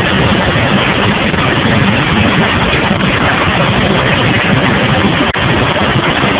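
Loud, steady running of engine-driven machinery.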